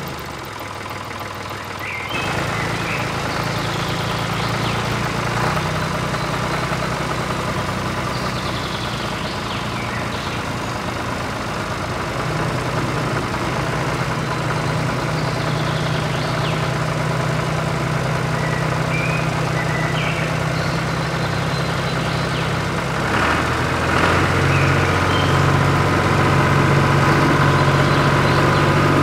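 Small motor of a miniature DIY model tractor running steadily. It starts about two seconds in, shifts in pitch partway through, and runs louder and deeper near the end.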